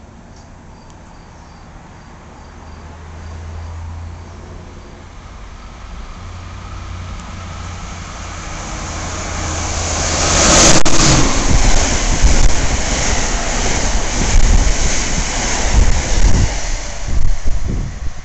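Amtrak Acela Express electric trainset approaching and running through the station at speed. A low hum and rush grow louder, peak as the lead power car passes about ten seconds in, then give way to a loud, uneven rumble of wheels on rail with low thumps as the cars go by.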